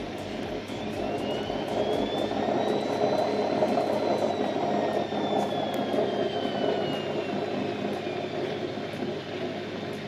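Hoover Vision HD washing machine drum spinning at high speed with a loud roar that builds and then eases. A whine over it rises in pitch over the first few seconds and slowly falls again. The noise is typical of worn drum bearings.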